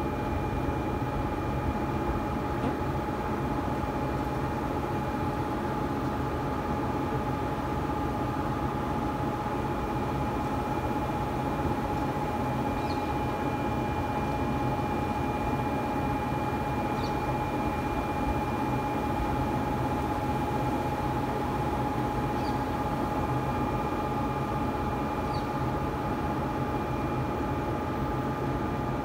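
Steady electrical hum and whine of 500 kV DC substation equipment: several steady high tones over a continuous low noise, unchanging throughout, with a few faint short chirps.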